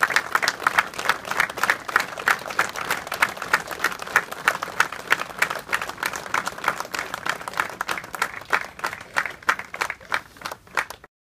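A large crowd applauding steadily, the claps thinning out toward the end before cutting off suddenly.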